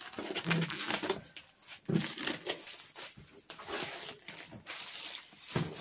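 Fingers picking at and peeling packing tape off a cardboard box, with irregular scratching, ripping and crinkling of tape against cardboard as the box is opened.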